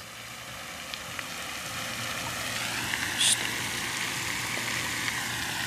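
Steady outdoor rushing noise that grows a little louder over the first couple of seconds, with a single faint click about three seconds in.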